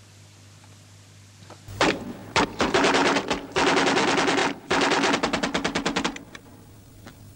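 Several bursts of rapid automatic gunfire, starting a little under two seconds in and lasting about four seconds, with a couple of single shots as it trails off.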